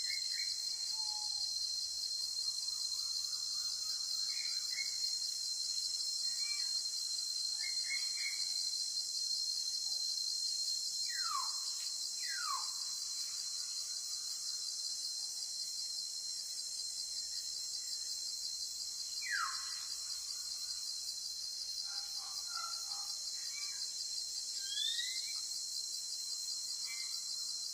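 Nature ambience: a steady, high-pitched insect chorus, with birds now and then giving short chirps and a few quick falling whistles around the middle.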